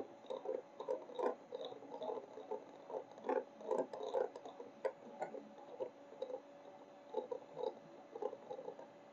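Electric hand mixer beating cake batter in a glass bowl: a faint steady motor hum under quick, irregular clicks and slaps of the beaters in the batter.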